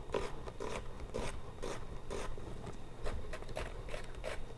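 Chef's knife slicing a sweet onion into thin julienne strips on a wooden cutting board: a run of crisp crunching cuts, each ending in a light knock of the blade on the board, about two a second.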